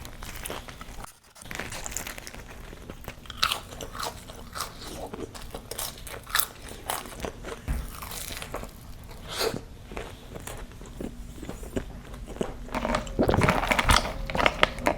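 A person biting and chewing crunchy fast food close to the microphone: a burger topped with a fried jalapeno cheddar bite, with wet crackling chews. The crunching gets denser and louder near the end.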